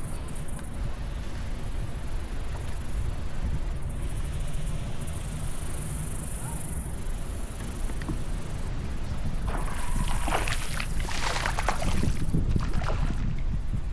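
Wind rumbling on the microphone, with a few seconds of louder, ragged rustling noise about two-thirds of the way in.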